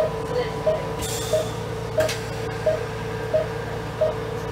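Anesthesia patient monitor beeping with each heartbeat of the anesthetized dog, a steady single-pitched beep about one and a half times a second, over a constant machine hum. A brief rustle comes about a second in and a sharp click about two seconds in.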